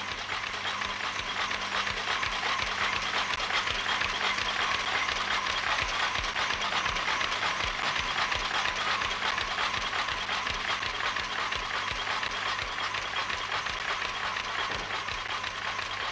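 Buckle-plate paper folding machine running at speed: a fast, even mechanical clatter of rapid ticks over a steady low hum.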